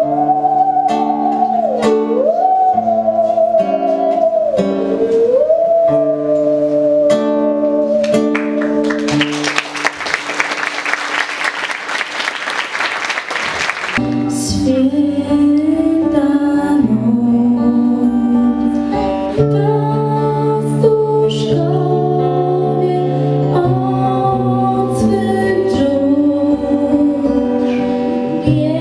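A bowed musical saw plays a wavering, sliding melody over acoustic guitar chords, stopping about nine seconds in. Applause follows for about five seconds. Then a girl's voice sings a Christmas carol over strummed acoustic guitar.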